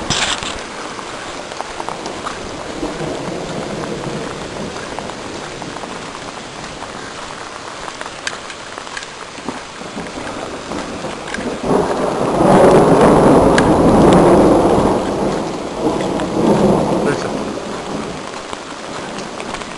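Waterfall: steady rushing of falling water, swelling louder for about three seconds a little past the middle.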